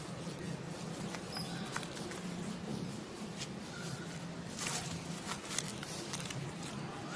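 Outdoor treetop ambience: faint rustling and scattered soft clicks, with a few brief faint squeaks or chirps, over a steady low hum.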